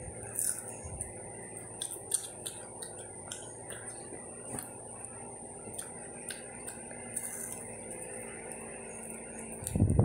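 Faint crunching and mouth clicks of someone chewing a hard, brittle microwaved-marshmallow cracker, a few sharp snaps scattered through, over a steady faint high whine.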